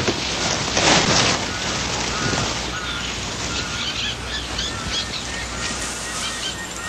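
Outdoor field ambience: a steady hiss with birds chirping now and then.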